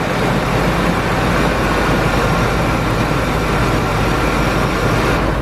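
1999 Ford Expedition's V8 engine running steadily at idle, then stopping abruptly at the very end.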